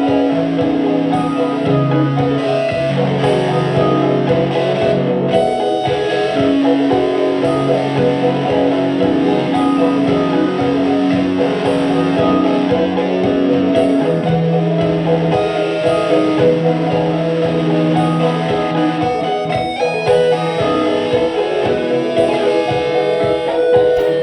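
Electric guitar played as dense, layered music: long held low notes lasting several seconds under busier, shifting notes higher up.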